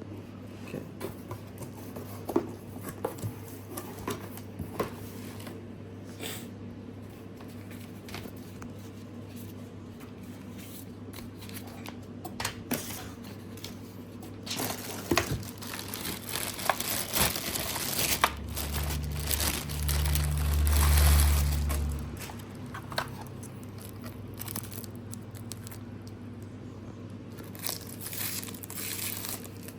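Packaging being handled: plastic crinkling and cardboard rustling, with scattered small clicks and knocks. A louder low rumble comes for a few seconds past the middle.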